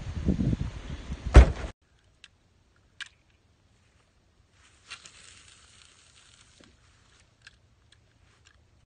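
Wind buffeting the microphone, then an SUV's rear hatch slammed shut with a single thud about a second and a half in. The sound then cuts out to near silence, broken only by a few faint clicks.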